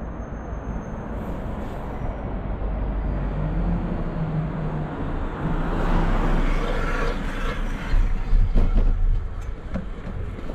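A motor vehicle drives past, its engine hum and road noise swelling to a peak about two-thirds of the way in and then fading, over a steady low rumble. A few sharp knocks come about eight seconds in.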